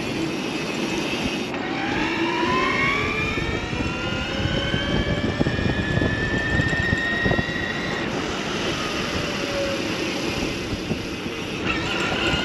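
Electric BMX bike's motor whining under throttle, its pitch rising steadily as the bike speeds up, easing off, then climbing again near the end. A steady rush of wind and road noise runs under it.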